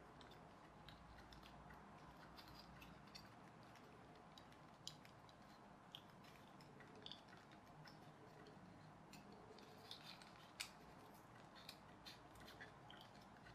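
Faint, scattered clicks and light rustling of card and plastic toy car kit parts being handled and pressed together, with a few sharper clicks, the sharpest about ten seconds in.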